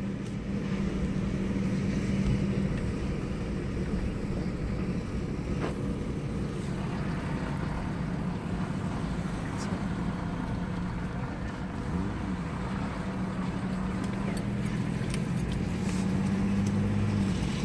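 Car engine and tyre noise heard from inside the cabin while driving, a steady low hum.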